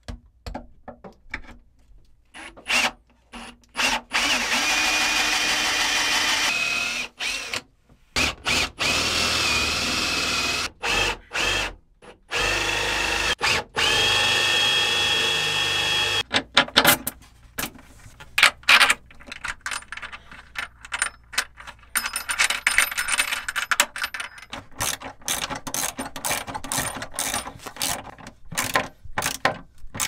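Power drill running in several long bursts, its motor whining steadily as a twist bit bores through a board. From about halfway through, a socket ratchet clicks rapidly in short runs as a bolt is tightened.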